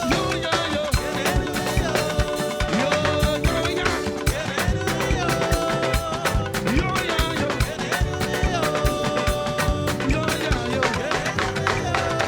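Live band playing an upbeat instrumental passage of praise music, with a busy, steady drum and percussion beat under long held notes that repeat every couple of seconds.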